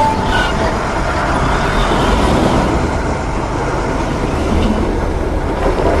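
Steady truck engine running, a continuous low rumble.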